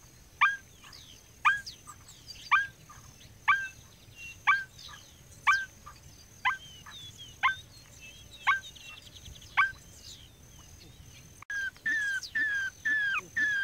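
Paint-billed crake calling: a series of sharp, downward-sweeping notes, about one a second. Near the end it changes abruptly to a quicker series of shorter notes, about two a second, with other birds calling faintly behind.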